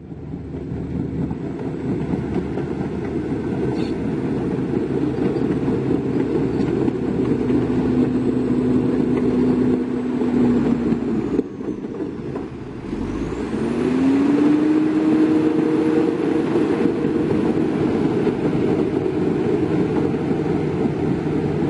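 Heavy diesel engine of earthmoving equipment running hard with a dense, loud rumble. About eleven seconds in it drops off briefly, then revs back up and holds steady.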